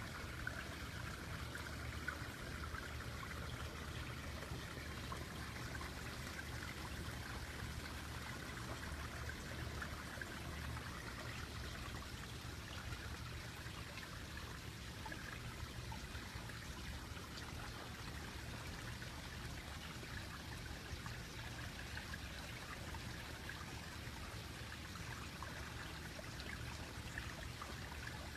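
Steady trickling and splashing of running water in a koi pond, with a low steady hum underneath.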